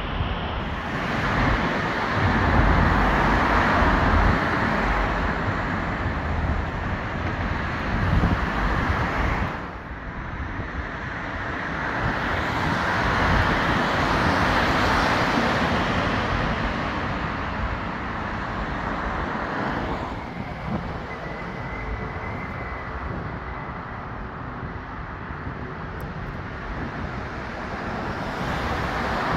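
Road traffic passing on a busy road: two loud swells of cars going by in the first half, then a quieter, steadier traffic noise.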